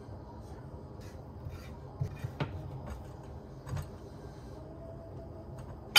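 Spatula scraping and knocking against a frying pan as scrambled egg is scooped out into bowls, with a few soft knocks. A sharp, ringing clink right at the end.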